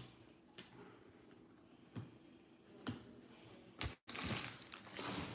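Faint handling of trading cards: a few soft ticks as cards are put down, then, from about four seconds in, the crinkle of a foil card pack being picked up.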